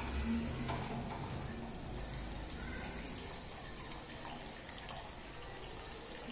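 Starchy cooking water dripping and trickling off a slotted steel skimmer as half-cooked basmati rice is lifted out of its pot to drain.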